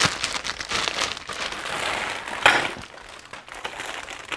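Clear plastic parts bags of RC kit parts crinkling as they are handled, with the hard plastic parts inside shifting. One sharp knock comes about two and a half seconds in.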